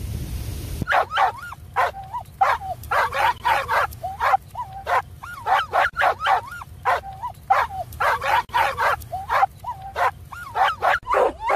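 A dog yipping and barking in quick runs of short, sharp yips, repeated about once a second.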